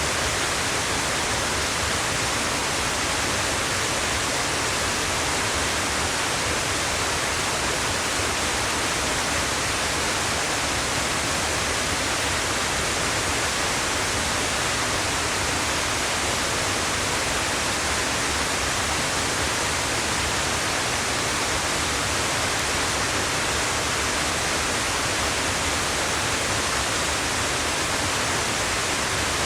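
Steady, even rush of water from a tall mountain waterfall, the Yonako Great Waterfall, pouring without a break.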